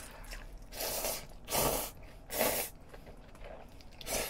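A person slurping cold spicy mixed noodles (bibim-myeon) off chopsticks: a run of about five short, hissing slurps, the loudest about one and a half seconds in.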